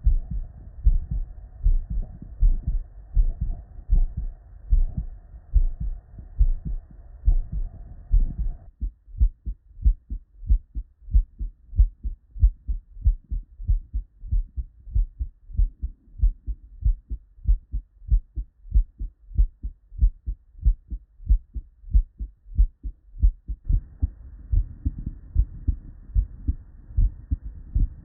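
Normal human heart sounds heard through a stethoscope: a steady, even rhythm of S1 and S2 beats ("lub-dub") from a heart with normal physiology. About nine seconds in, the sound switches to a cleaner recording with less background noise, and near the end it switches back to the noisier one.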